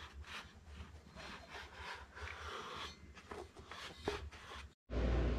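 Fingers rubbing and pressing around a new foam surround on a Cerwin Vega woofer cone: soft, scattered rubbing and light scraping. Near the end the sound cuts out for a moment, and a steady low hum follows.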